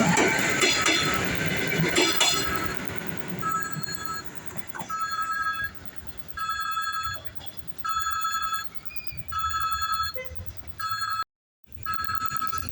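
Passing train noise fades out, then an electronic warning signal sounds repeatedly. It gives a steady pitched beep of about 0.7 s roughly every second and a half, about seven times, and is briefly cut near the end.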